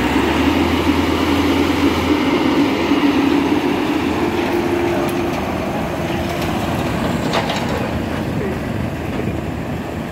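Tracked corn combine harvester running as it drives off on its crawler tracks: a steady engine drone, with a deep low hum that drops away about two seconds in. It gets a little fainter toward the end.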